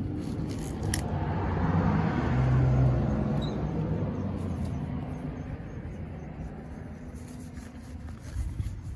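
A car driving past, its engine hum and tyre noise building over the first few seconds, then fading slowly away.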